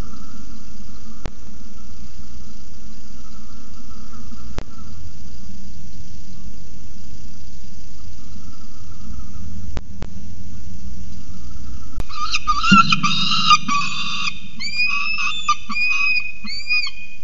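Peregrine falcon arriving in the nest box: a soft thump as it lands on the gravel, then a quick run of chattering calls and about six separate arched 'ee-chup' calls. Before that there is only a steady hiss with a few faint clicks.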